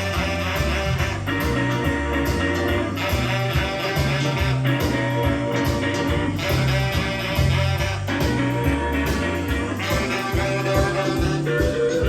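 Guitar-and-bass band music with a steady, rhythmic bass line, played back from cassette on a Nakamichi Dragon tape deck through speakers.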